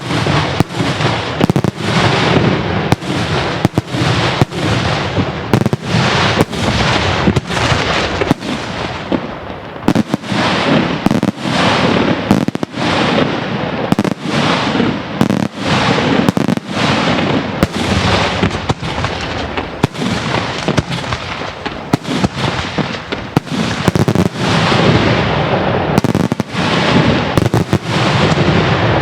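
Daytime fireworks display: a continuous barrage of loud bangs, about two or three a second, each followed by a rolling echo.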